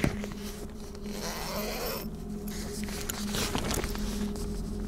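Tent door zipper being pulled in two noisy strokes, about a second in and again past three seconds, after a sharp click at the start.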